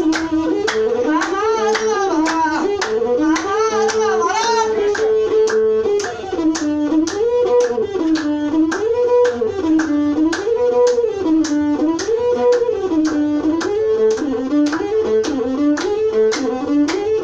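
Ethiopian azmari music: a bowed masinko plays a repeating melody that glides smoothly up and down, over a steady percussive beat of about three strikes a second.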